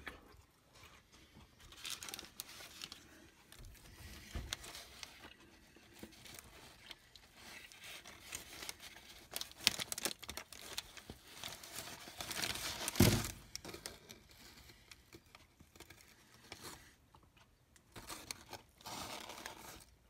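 Cheese wrapping paper crinkling and rustling in irregular bursts as hands fold and pick at it, with a louder bump about two-thirds of the way through.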